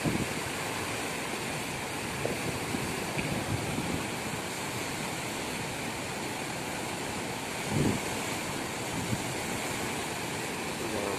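Flooded river pouring over a weir: steady rushing of churning floodwater. A brief low thump of wind on the microphone comes about eight seconds in.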